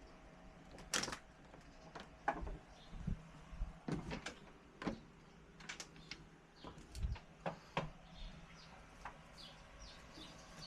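Sliding patio door with a newly fitted handle and lock being tested: a scattered series of sharp clicks and knocks from the latch and door. Birds chirp faintly in the background.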